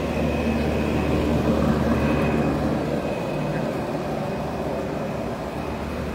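Steady machine hum of greenhouse ventilation fans, a low drone with a thin high whine over a broad rush of air.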